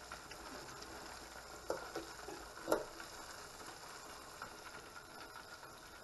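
Beer-battered perch fillets bubbling and sizzling in hot oil in a small electric deep fryer. A few short taps, the loudest just under three seconds in, come from a fork knocking against the fryer's wire basket.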